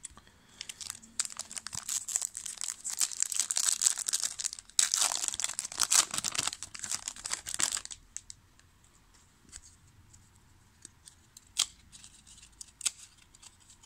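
A foil trading-card pack (2000 Topps Season Opener) being torn open and crinkled by hand for about seven seconds. After that come scattered light clicks as the cards inside are handled and thumbed through.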